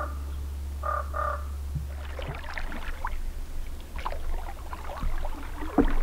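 A crow caws at the start and again about a second later, over a low steady hum. From about two seconds in come irregular splashes and knocks of a canoe paddle working the water.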